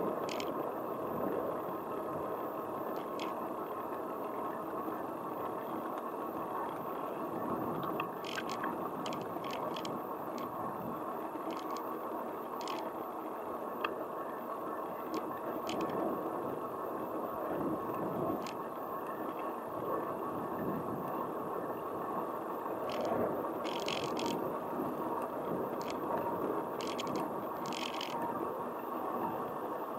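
Steady rolling and wind noise from riding along a paved street, with scattered sharp clicks and rattles from bumps, more of them around a third of the way in and near the end.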